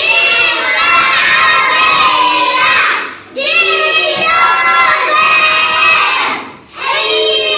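A group of young nursery children loudly chanting a song together, shouted more than sung, in phrases of about three seconds with short breaks between.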